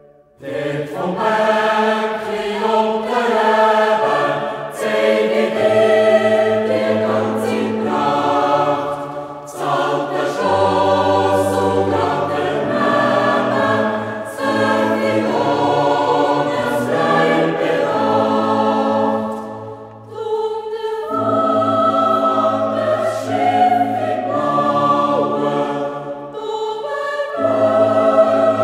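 Background music: a choir singing a Swiss folk song in sustained chords, phrase by phrase, with short breaks between phrases.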